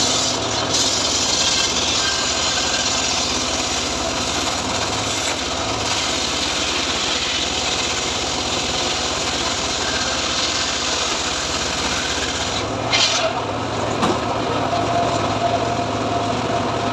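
Homemade engine-driven sliding-table circular saw (gergaji srekel) ripping a teak log lengthwise: a steady sawing rasp over the engine drone. The cutting stops about 13 seconds in, with a few knocks, leaving the engine running and the blade spinning free with a steady hum.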